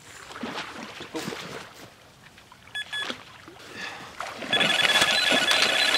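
Electronic carp bite alarm beeping: a couple of short beeps about three seconds in, then a fast unbroken run of beeps from about four and a half seconds in, signalling line being pulled off by a fish. Before that, water splashing as a hooked grass carp swirls near the bank.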